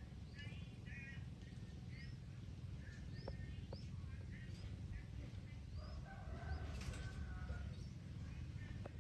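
Birds chirping in short, repeated rising notes, with a few sharp clicks among them. A lower, longer call comes in about six seconds in.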